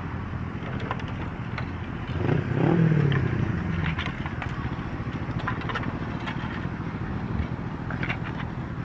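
Steady hum of motor vehicles running, swelling as one passes louder about two and a half seconds in, with scattered light clicks and scrapes of broken motorcycle fairing pieces on asphalt.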